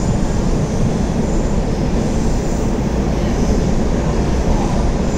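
MetrôRio metro train running along the line, a steady rumble of wheels on rail with a faint high hiss above it.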